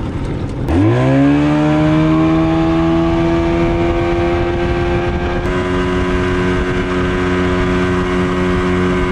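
55 horsepower outboard engine opened up on the water under load. Its pitch climbs quickly just under a second in, then it runs at a steady high speed pushing the boat.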